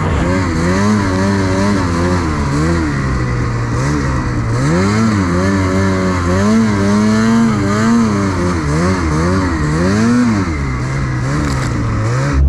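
Ski-Doo 850 two-stroke snowmobile engine under load, revving up and down again and again as the throttle is worked while riding in deep snow.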